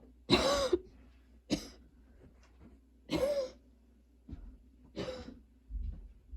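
A girl's coughing fit from a persistent cough: four main coughs about one to two seconds apart. The first and third are the loudest, and there are smaller coughs and breaths between them.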